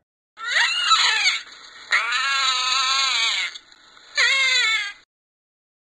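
Otter calling: three high, wavering squealing cries, the middle one the longest at about a second and a half.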